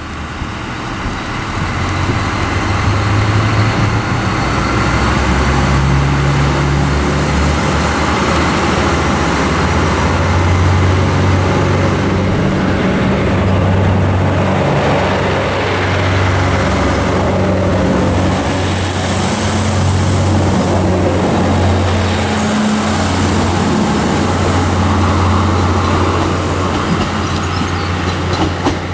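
NI Railways Class 3000 diesel multiple unit departing and passing close, its underfloor diesel engines running hard and changing note as it pulls away. A thin high whine joins in for a few seconds about two-thirds of the way through.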